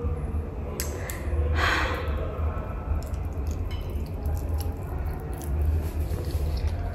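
A person eating by hand: chewing and breathing through the nose, with small wet mouth clicks and a short breath about one and a half seconds in, over a steady low hum.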